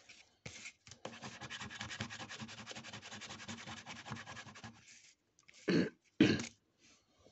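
Scratch-off coating on a paper lottery scratchcard being scratched away in rapid, even strokes for several seconds, followed by two short, louder sounds near the end.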